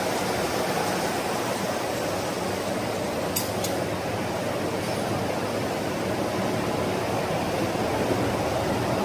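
1988 Bobst folder-gluer running at production speed: a steady mechanical noise from its belts and rollers, with two brief sharp clicks about three and a half seconds in.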